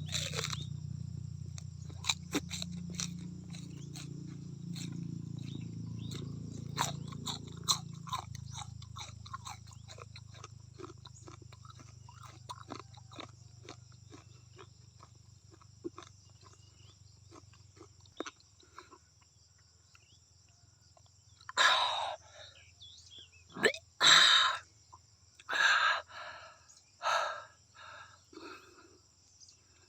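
A person chewing and crunching a mouthful of raw banana stem close to the microphone, with many small wet mouth clicks. Five or six louder short bursts of chewing or breathing come in the last eight seconds.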